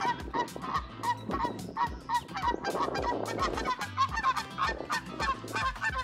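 Canada geese honking repeatedly, a fast series of short calls at about two to three a second.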